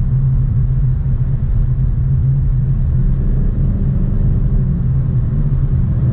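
Car driving along a city avenue, heard from inside the cabin: a steady low rumble of engine and road noise.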